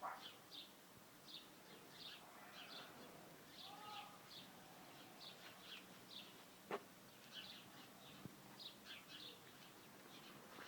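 Faint bird chirping: short high chirps repeated irregularly, a couple each second, over a quiet background, with one sharp click about two-thirds of the way through.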